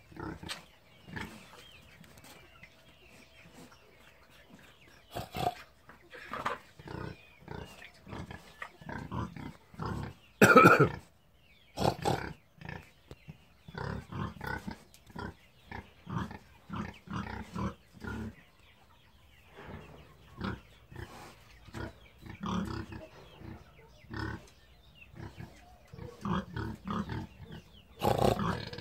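Domestic pig grunting in many short, irregular grunts, with one much louder sound about ten seconds in.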